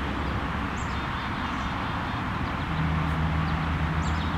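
Outdoor background: a steady low rumble with a few brief, high bird chirps, and a low steady hum that comes in a little over halfway through.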